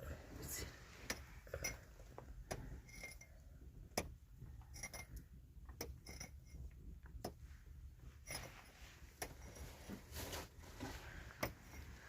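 Irregular light clicks and clinks of small hard objects being handled, a few with a brief ring like glass or crockery touching.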